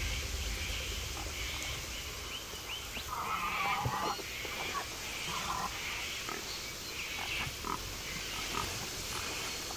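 Wild boar grunting repeatedly, about once a second, over a low rumble of wind.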